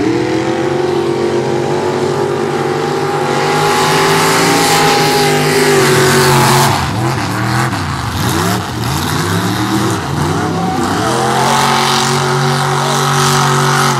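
Mud-racing pickup truck engine at full throttle: the revs climb at the start and hold high. Roughly halfway through, the revs swoop up and down again and again as the throttle is worked and the wheels spin in the mud, then they hold high and steady again.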